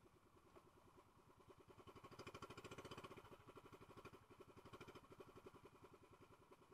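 Faint small boat engine running with rapid, even pulses, growing louder about two seconds in and easing back after about three seconds.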